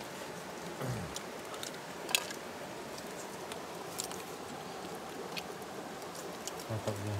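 Scattered small clicks and taps of spoons against metal pots and jars, with soft rustling, over a steady background hiss. One sharper click about two seconds in.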